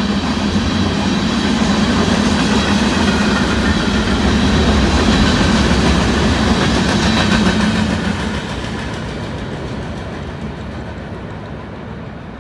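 Covered hopper cars of a freight train rolling past at speed, steel wheels running on the rails. About eight seconds in the noise starts to fade as the end of the train draws away.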